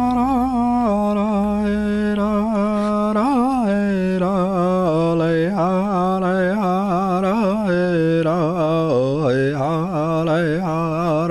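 A single unaccompanied voice singing a slow chant, with long held notes that waver and a melody that steps downward through the phrase.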